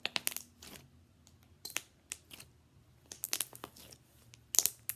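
Slime being squeezed and poked by hand, giving clusters of sharp little pops and clicks, four bursts with short quiet gaps between.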